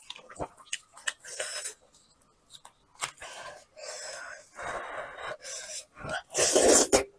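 Gloved hands tearing braised meat from a sheep's head in several noisy pulls, then a loud breathy bite as the meat goes into the mouth near the end.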